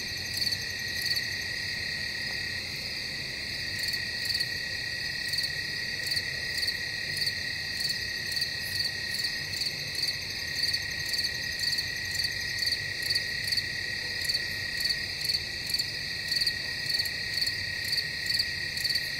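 Night chorus of crickets and frogs: a steady high trilling with regular pulsing chirps, more marked in the second half.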